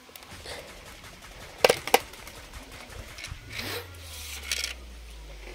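Plastic parts of a toy AK-47 gun being handled and fitted together: rubbing and scraping of plastic on plastic, with two sharp clicks close together about a second and a half in.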